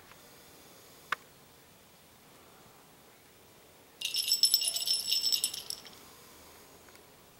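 A short click about a second in, then a bright, jingling rattle that starts suddenly about four seconds in and lasts about two seconds before fading.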